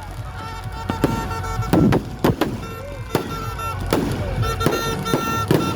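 Fireworks going off in a rapid, uneven string of about eight sharp bangs, over steady held tones.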